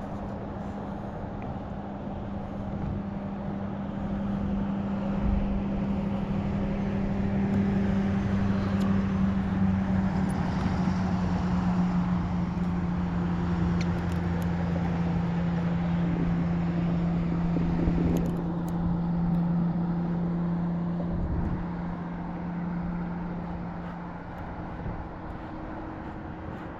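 A steady engine hum that slowly drops in pitch, growing louder a few seconds in and fading near the end.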